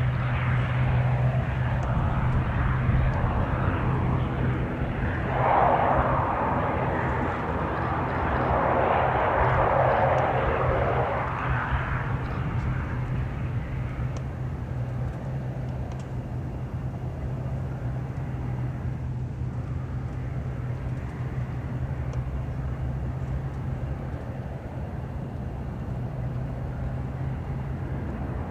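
ATR 72-600 turboprop engines and propellers running during the landing rollout, with a steady low propeller hum. A louder rushing surge comes about five seconds in, lasts around seven seconds and fades, leaving the engines quieter as the aircraft slows.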